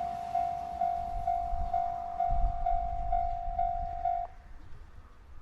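Railway crossing warning bell ringing about twice a second, stopping about four seconds in, over the low rumble of a train.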